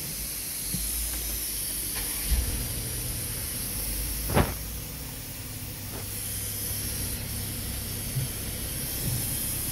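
Steady hiss of car-wash water spray on the car, heard from inside the cabin, over a low steady rumble, with one short thump about four and a half seconds in.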